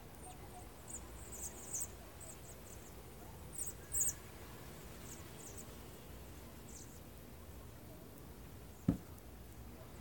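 A flock of birds in flight giving short, high, thin calls, scattered and clustered mostly in the first half, over a faint steady outdoor background. A single sharp thump near the end.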